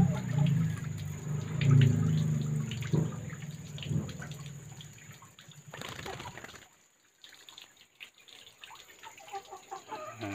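Water splashing and dripping as a pet lory is dunked in a basin of water and lifted out. The splashes die away about two-thirds of the way through, leaving a few faint drips.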